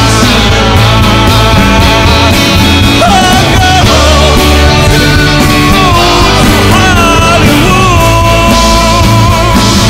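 Live rock band performing with lead and backing vocals over electric bass and acoustic guitar, taken straight from the mixing desk, so the mix sounds rough.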